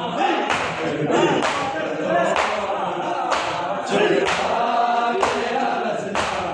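A crowd of men chanting a nauha in unison, with a collective slap of hands on bare chests (matam) about once a second.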